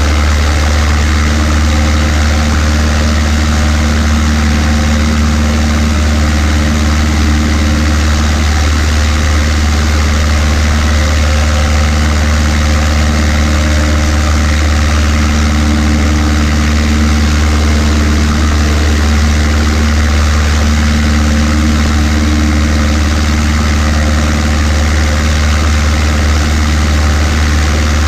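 Cessna 140A's four-cylinder air-cooled engine and propeller idling steadily while the plane stands still.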